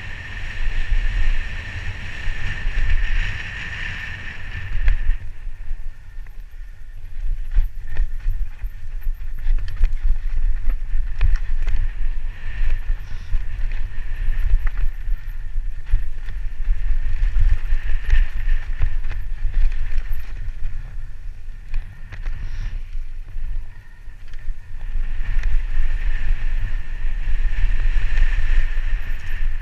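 Mountain bike descending a rough dirt trail at speed, recorded from a helmet camera: heavy wind rumble on the microphone with frequent knocks and rattles as the bike hits bumps and roots. A high buzzing hum comes and goes, strongest in the first few seconds and near the end.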